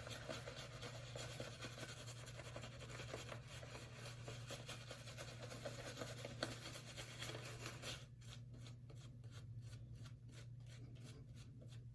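Synthetic shaving brush working soap into a lather on the face: faint, quick scratchy brushing strokes, settling into an even rhythm of about five strokes a second in the last few seconds.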